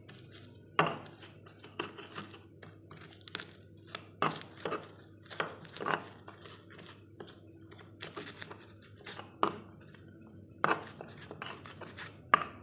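Stone pestle (ulekan) crushing and grinding garlic, shallots, chillies and coarse salt on a flat stone mortar (cobek): irregular scraping, crunching strokes of stone on stone as the spice paste is ground by hand.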